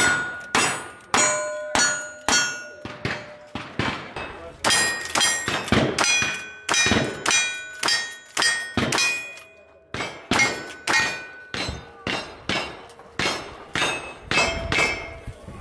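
Rapid gunfire at steel targets in a cowboy action shooting stage, roughly two shots a second, each followed by the ring of the struck steel plate.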